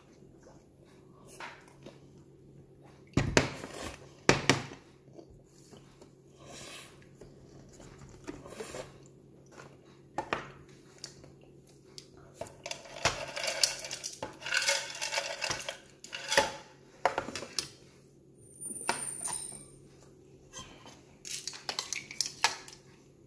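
A metal fork clinking and scraping against a plastic bowl of noodles in scattered knocks, two of them sharp and loud a few seconds in. Near the end, ice clinks in a glass mug as it is lifted.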